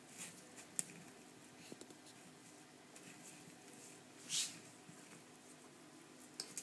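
Table knife spreading butter on bread against a plastic cutting board: faint scratchy scraping with a sharp click just under a second in and a short, louder scrape about four and a half seconds in, over a steady low hum.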